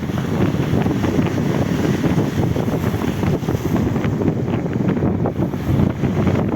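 Steady wind buffeting the microphone, with the wash of sea surf beneath it.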